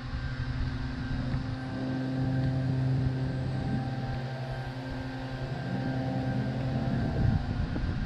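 An engine running at a steady pitch, shifting slightly about five and a half seconds in.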